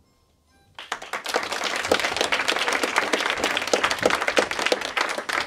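Audience applause breaking out suddenly about a second in: many hands clapping at once, dense and steady.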